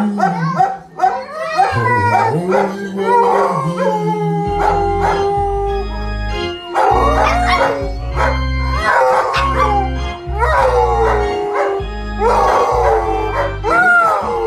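Dogs howling in long wavering rising and falling cries, a large yellow Labrador-type dog with a small dog, along with music; steady low sustained notes come in about four seconds in.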